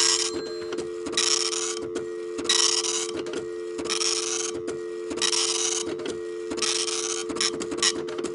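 Telephone line dial tone after the call is hung up, a steady two-note hum. Over it, a mechanical clatter comes in repeating bursts about every second and a half.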